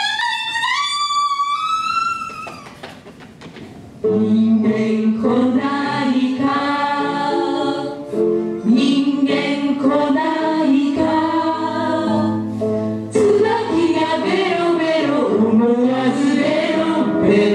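A girl's high voice sings a long, slowly rising note that fades out. About four seconds in, musical accompaniment of sustained chords starts and a group of voices sings a song over it.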